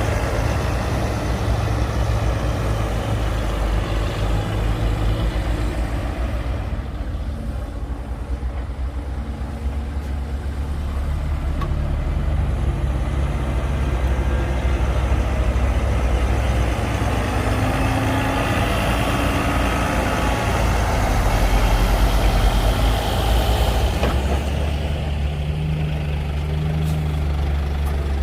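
Heavy diesel engines of earthmoving machinery running as they work, a deep steady drone whose loudness dips and then builds again.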